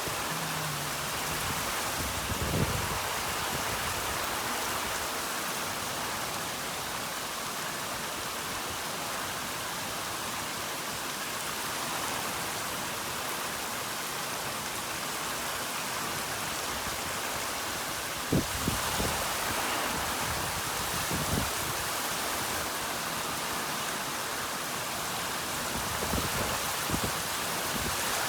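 Heavy rain falling steadily, with a few short, dull low bumps scattered through it.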